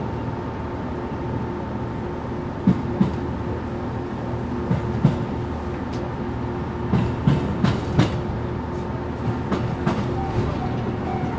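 KiHa E130 series diesel railcar moving slowly in a shunting move, its engine humming steadily. From about two and a half seconds in, its wheels clack sharply over points and rail joints, a dozen or so clacks in uneven groups.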